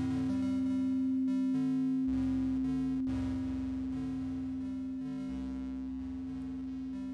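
Synthesised sample playback from a spatial-audio DAW: a steady sine tone held throughout, with a shifting pattern of low piano and square-wave notes beneath it.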